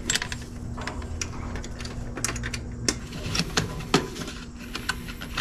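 Irregular small clicks and crackles of hands handling an engine wire and wrapping electrical tape around a spliced connection, over a low steady hum.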